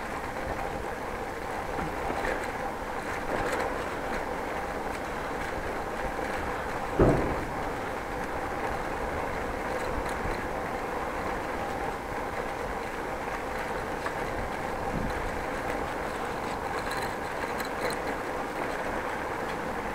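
Steady rolling noise of a bicycle riding over a brick-paved street, with a single knock about seven seconds in.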